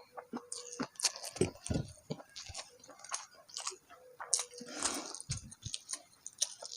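Close-miked chewing of a mouthful of food, with wet squishing and smacking and many short, irregular mouth clicks.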